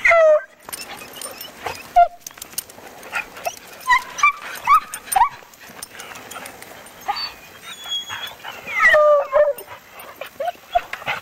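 Dogs whining and yipping in short, high calls that slide down in pitch, coming in clusters every few seconds.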